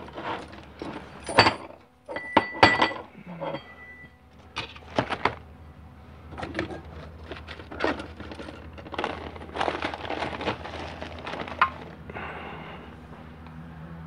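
Metal parts and tools being handled on a workbench, clinking and knocking in an irregular string of sharp strikes, with a brief metallic ring about two seconds in.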